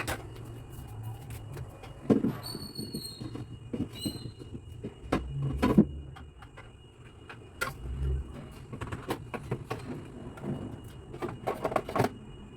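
Cleaned plastic containers and trays being fitted back into a mini refrigerator: knocks, clatter and thuds of plastic on plastic, with two short high squeaks of parts rubbing about two and a half and four seconds in.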